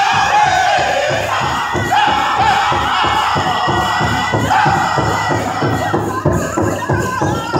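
Powwow drum group singing a chicken dance song in high-pitched voices, each phrase starting high and falling, over a steady, even drum beat.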